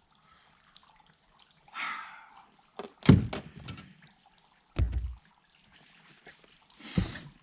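Three knocks and thumps of gear against a fishing boat, the first, about three seconds in, sharp and loudest, with faint water sounds between them.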